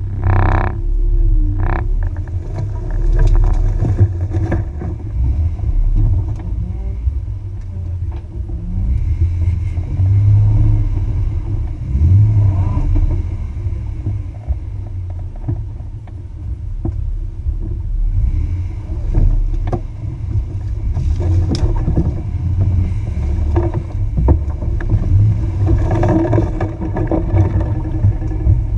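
Jeep Wrangler TJ engine rumbling at low revs as it crawls along a rough, muddy off-road trail, heard from a camera over the hood. Scattered knocks come from the body and running gear over the bumps, and brush scrapes along the sides.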